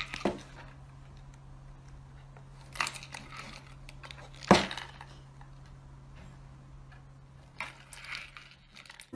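A cat pawing at and tipping over a small cardboard box on a wooden surface: a few scattered knocks and rustles, the loudest a thud about four and a half seconds in, over a steady low hum.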